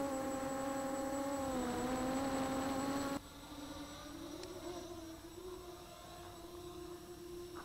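Walkera Runner 250 racing quadcopter's brushless motors and propellers whining steadily as it comes in to land. About three seconds in the whine drops suddenly to a fainter, slightly higher-pitched whine.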